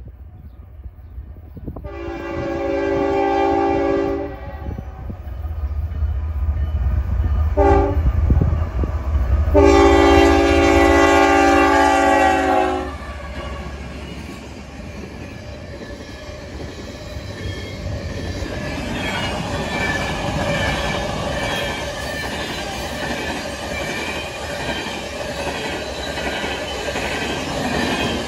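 Diesel freight locomotive sounding its horn for a grade crossing: a long blast, a short one and another long one. The train then rolls past close by with the steady rumble and clatter of wheels on rail, while the crossing's RSI electronic bell rings.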